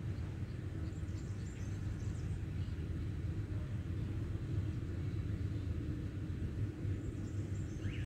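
Outdoor ambience: a steady low rumble, with a few faint high bird chirps about a second in and again near the end.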